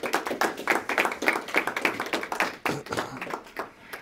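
A small group of people clapping their hands, a quick uneven patter of claps that dies away just before the end.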